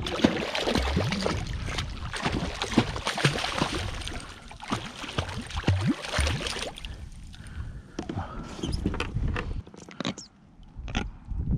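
Hooked jack crevalle thrashing and splashing hard at the water's surface beside a kayak while it is landed. The splashing stops about two-thirds of the way through, and a few light knocks follow.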